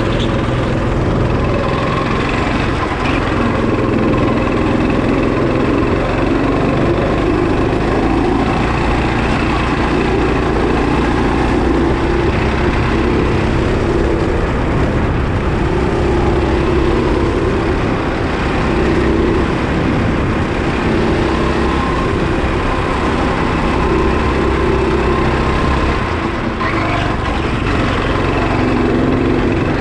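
Go-kart engine running continuously through a lap, heard from on board the kart, its note swelling and easing as it goes through the corners.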